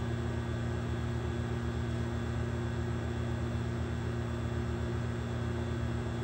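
A steady low hum with faint higher tones and an even hiss, unchanging throughout.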